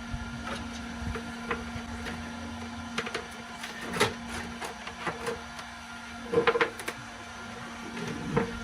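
A steady low hum with scattered light clicks and knocks of handling, and a short clatter of knocks about six and a half seconds in.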